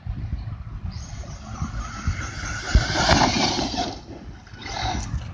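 Electric Team Associated RC8 truggy running on a 4S LiPo, accelerating across grass. Its motor and drivetrain whine rises from about a second in, is loudest around three seconds, and drops away about four seconds in, then picks up again.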